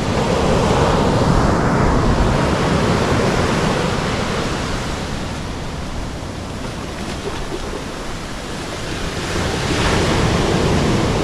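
Ocean surf breaking and washing up a sand beach, a steady rush that swells louder in the first few seconds and again near the end, with wind buffeting the microphone.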